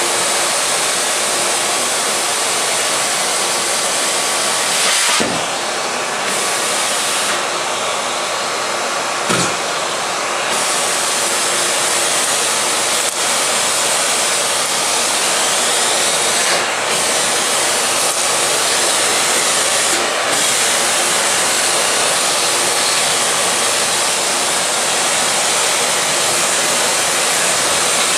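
Miele S121 canister vacuum cleaner with a 1600-watt motor running steadily at full suction while picking up paper and tissues. The airflow hiss changes briefly twice, around five and nine seconds in, each time with a soft knock.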